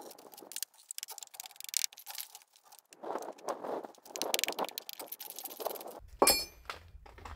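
A heavy timber beam being shifted against old brick masonry: irregular scraping, knocking and clattering, with a louder knock and a short ring about six seconds in.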